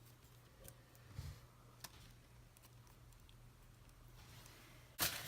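Quiet handling of small craft items on a table: a few faint clicks and taps, then a sudden louder clatter and rustle near the end as the next item is picked up.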